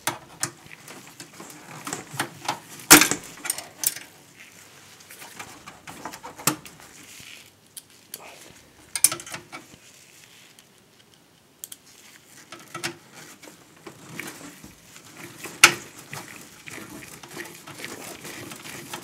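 Phillips screwdriver and screw working on the steel PC case at the video card's slot bracket: scattered small metallic clicks, scrapes and handling noise while the screw is driven tight, with the sharpest clicks about three seconds in and again near the end.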